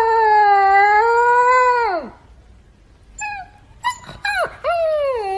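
Husky-type puppy howling: a long high howl that wavers and falls away about two seconds in, then a few short yelps, then a second howl starting near the end.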